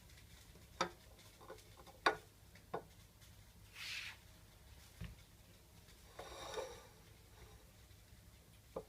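Faint handling of a pot of cooked basmati rice with a spoon: a few light clicks of the utensil against the pot, three in the first three seconds and one near the end, and two soft swishes near the middle.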